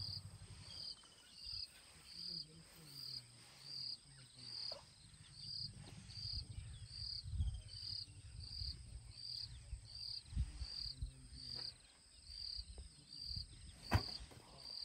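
An insect chirping steadily in a high pitch, about four short chirps every three seconds, over low elephant rumbles exchanged in a greeting. A single sharp click comes near the end.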